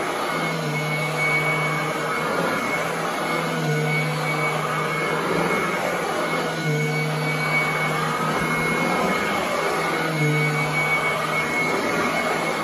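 Royal commercial upright vacuum running over carpet with a steady, high-pitched screaming whine. Its lower hum swells in and out about every three seconds as the machine is worked across the pile.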